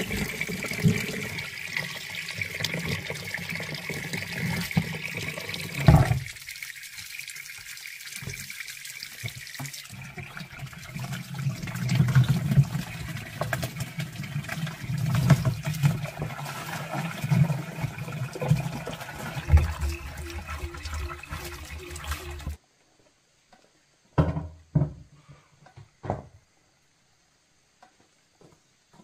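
Water gushing from an open hose pipe, splashing onto concrete and into a plastic bucket. It stops abruptly near the end, leaving only a few soft knocks.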